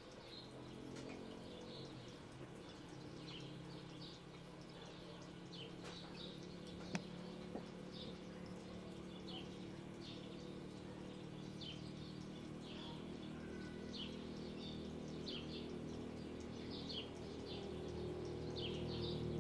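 Small birds chirping over and over, short high chirps about one or two a second, over a steady low hum that slowly grows louder. Two sharp clicks come about seven seconds in.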